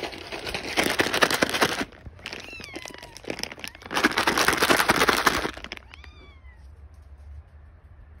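Domestic cat meowing, short calls that fall in pitch, about two and a half seconds in and again about six seconds in. Two loud stretches of rustling noise come before the calls, the first at the start and the second about four seconds in.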